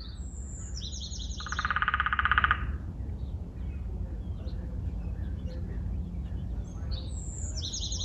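Woodpecker drumming: one fast, even roll lasting about a second. High chirping calls come just before it and again near the end.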